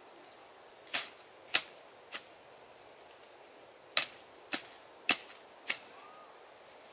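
A hatchet chopping into the ground in quick, sharp strokes: three hits, a pause, then four more, about half a second apart.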